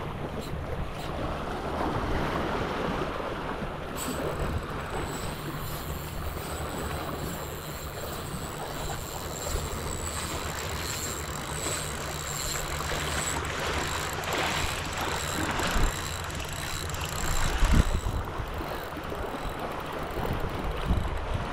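Small waves lapping and washing over shoreline rocks, with wind buffeting the microphone. A faint high wavering whine comes in about four seconds in and stops near eighteen seconds, with a single thump just before it ends.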